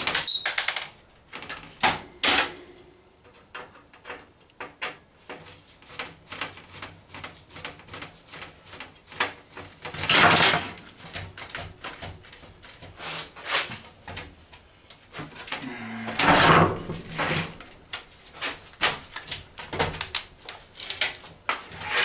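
A metal screwdriver clicking, tapping and scraping against a computer motherboard and its steel case as the motherboard screws are worked out, with two louder scraping rattles about ten seconds in and again about sixteen seconds in.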